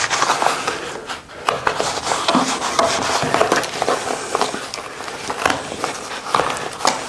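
Plastic sheeting rustling and crinkling as it is handled around a wooden frame, with scattered light knocks.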